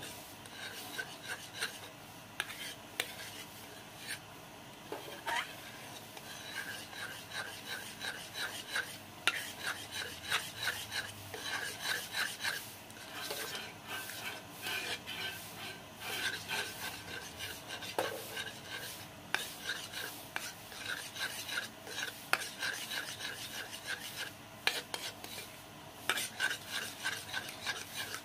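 Metal spoon stirring and scraping a thick glutinous rice flour paste around a small aluminium pot, in quick rhythmic scraping strokes with a metallic ring, pausing briefly now and then.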